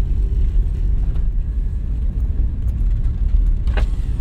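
Low, steady rumble of a Suzuki Escudo's 1.6-litre G16B four-cylinder engine heard from inside the cabin. One short click comes near the end.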